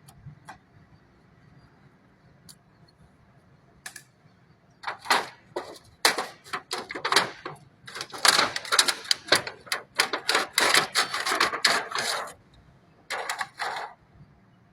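Rapid clicking and clattering of hand tools and metal parts while a solar inverter is taken apart, in dense runs from about five to twelve seconds in and again briefly near the end.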